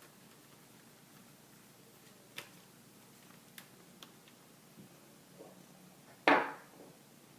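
A few light clicks, then one louder knock about six seconds in, from a laptop's plastic case and small tools being handled during reassembly.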